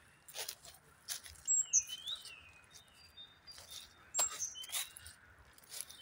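Small songbirds chirping, with a few short high notes and sweeping calls, over steady footsteps rustling through dry oak leaf litter.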